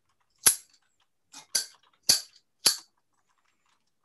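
Ikebana scissors snipping a flower stem: four sharp snips about half a second apart, with a fainter one just before the second, trimming the stem to length.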